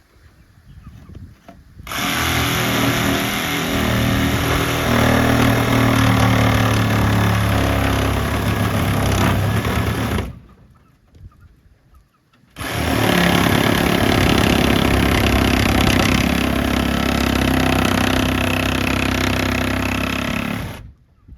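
A handheld electric power tool running under load in two steady runs of about eight seconds each, starting and stopping abruptly.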